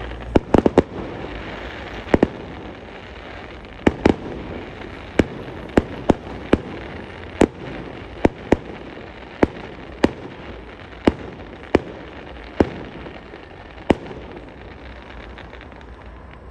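Fireworks display: a run of sharp aerial bangs, several in quick succession near the start, then one roughly every half-second to second, thinning out near the end.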